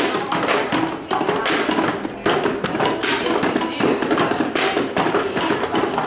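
Homemade rubber-band box instruments: rubber bands stretched over cardboard being plucked and the cardboard tapped, a rapid, continuous run of plucks and taps.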